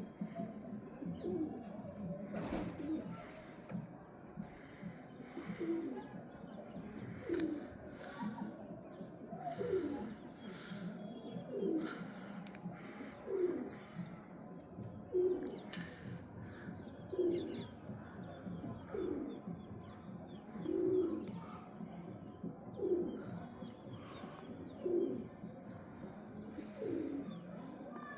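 Domestic pigeon cooing: a short, low, falling coo repeated about every two seconds.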